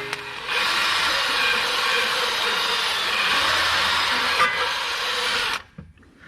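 A power tool cleaning out the ABS sensor mounting hole so the new sensor will fit, a steady harsh hiss. It breaks off briefly at the start and stops abruptly about five and a half seconds in.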